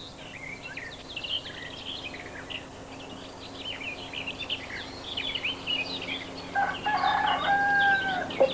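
Farmyard sounds: small birds chirp busily throughout, and a rooster crows near the end, the loudest sound. A faint steady hum runs underneath.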